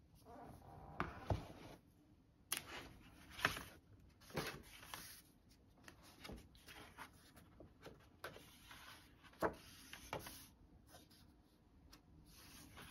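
Pages of a sketchbook being turned and the book handled on a wooden desk: paper rustling with a few sharp knocks against the desk.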